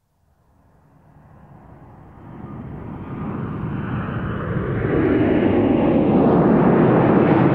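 Jet airliner engines: a steady rushing engine noise that fades up from silence, growing louder and brighter over about five seconds, then holding steady.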